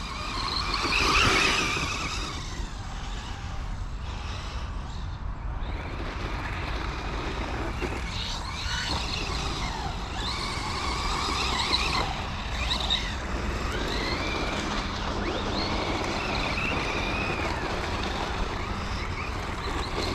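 The FTX Crossbow 1/10 RC truggy's brushless electric motor and drivetrain whine as it drives. The pitch rises and falls again and again with the throttle, loudest about a second in.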